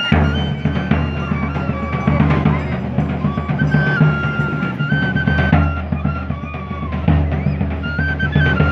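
Live Andean folk music: a large bass drum beating steadily under a high, stepping melody played on flutes. The drum comes in hard right at the start.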